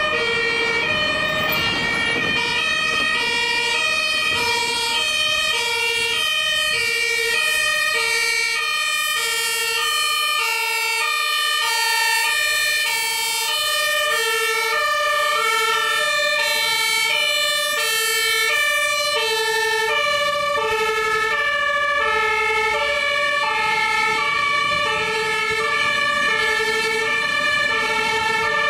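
German two-tone fire brigade sirens (Martinshorn) on passing fire trucks, switching steadily between a low and a high note, each held well under a second. More than one siren sounds at once, out of step with each other.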